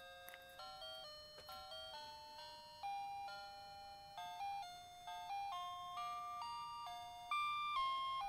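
Background music: a simple melody of single notes stepping up and down, one after another.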